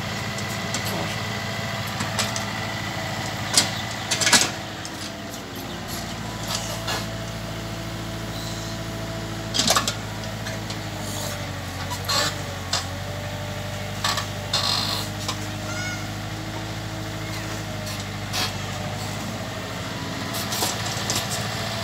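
Mini excavator's diesel engine running steadily as it digs and dumps mud, its note shifting slightly in pitch as the arm works, with several short sharp clanks from the bucket and arm.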